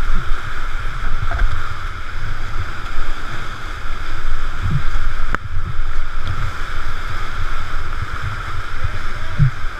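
Whitewater churning around a kayak caught in a whirlpool at the bottom of a rapid, picked up on a helmet-mounted GoPro: a steady loud rush with irregular low buffeting thumps, and one sharp click about five seconds in.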